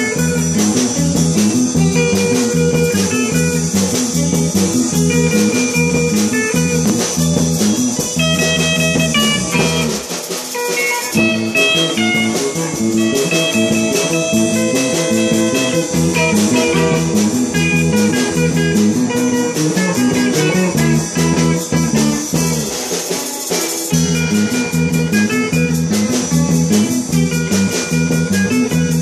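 Live rock band jamming: electric guitars, bass guitar and drum kit playing together through amplifiers. The low end drops out briefly twice, about ten seconds in and again near twenty-three seconds.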